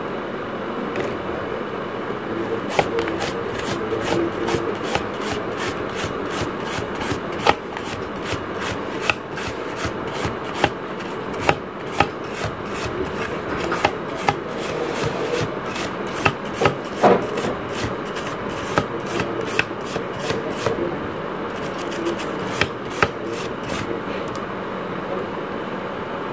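Brush scrubbing a printed circuit board: a fast, irregular run of short scratchy strokes over a steady background noise. The strokes begin about three seconds in and mostly stop near the end.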